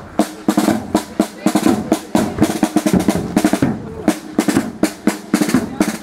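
Drums played live in a fast rhythm of quick snare-like strikes and rolls, with a steady lower tone running underneath.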